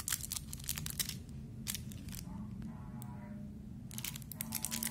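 Small clear plastic packet of screws being handled and opened by hand, crinkling and rustling with light clicks. The rustling is brief and sharp at first, goes quieter in the middle, then turns into dense crinkling near the end.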